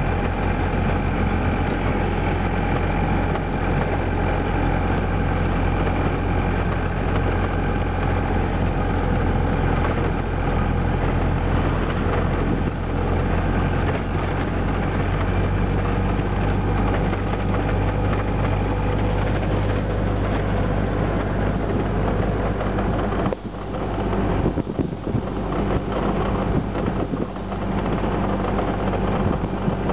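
Engine of a wooden-bodied truck bus running steadily while the bus drives along, with road and wind noise. The sound dips briefly about three-quarters of the way through.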